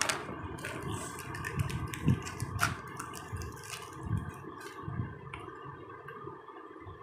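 Hands handling an electric toothbrush and its plastic packaging: crinkling wrapper and small clicks, busiest in the first few seconds, with soft knocks of handling over a steady background noise.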